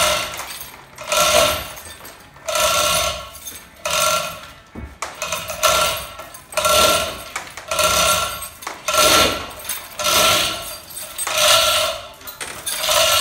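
Hand chain of a chain fall hoist being hauled hand over hand, the steel chain rattling and clinking through the hoist with each pull. The pulls come in a steady rhythm of roughly one every second and a bit.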